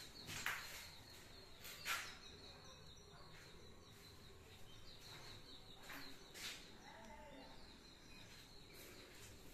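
Faint outdoor background of birds chirping, a thin high repeated chirp running steadily. A few sharp soft clicks sound about half a second, two seconds and six and a half seconds in, and a faint short call near seven seconds.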